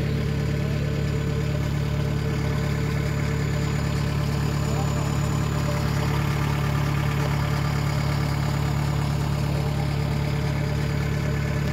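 Farm diesel engines running steadily at a constant speed: a two-wheel walking tractor close by, with a Kubota rice combine harvester working alongside.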